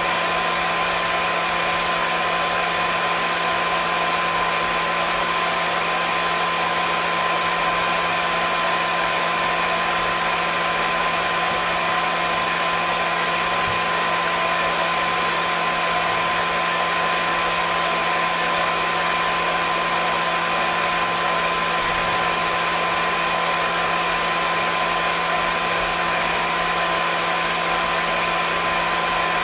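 Hair dryer running continuously at a steady speed: a constant blowing rush with a steady motor whine.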